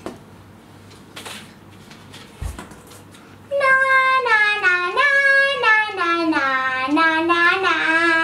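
A child singing a melody with long held notes, starting about three and a half seconds in, after a few faint knocks.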